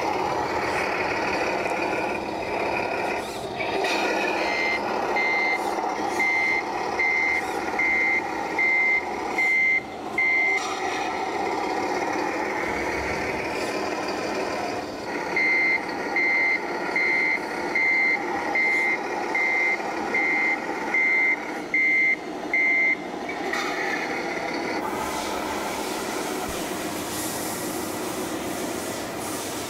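Reversing beeper of a remote-controlled model truck: one high beep about every 0.8 seconds, in two runs of roughly ten beeps with a pause between. Under it runs a steady engine-like drone, and a hiss comes in near the end.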